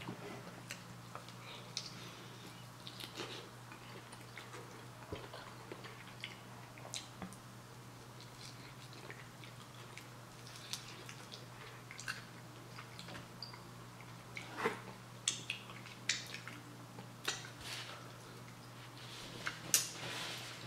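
Close-up eating of crunchy Korean fried chicken wings: scattered crunches and wet mouth clicks from biting and chewing, coming more often in the last several seconds.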